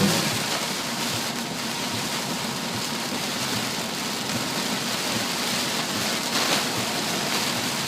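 Heavy rain and a car's tyres driving through floodwater, a steady rushing hiss with a brief louder splash about six and a half seconds in.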